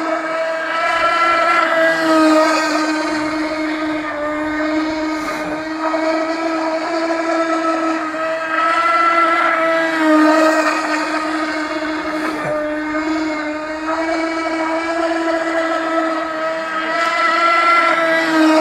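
15cc glow-fuel engine of a radio-controlled boat running steadily at high revs, a high, even drone whose pitch wavers slightly and whose loudness swells and fades several times, loudest about 2, 10 and 18 seconds in.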